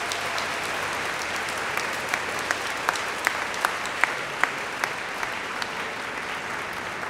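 Audience applauding steadily, with a handful of louder single claps standing out through the middle.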